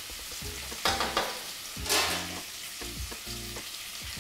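Pork ribs sizzling as they brown in their own fat, with louder hissing spurts about one and two seconds in.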